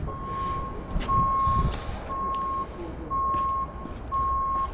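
Vehicle reversing alarm beeping: a single steady high tone about once a second, each beep about half a second long, over a low rumble.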